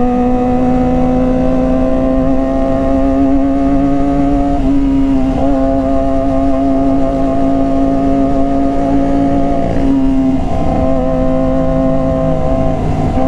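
A sport motorcycle's engine drones steadily at cruising speed. Its pitch dips briefly about five seconds in and again near ten seconds as the throttle eases and comes back.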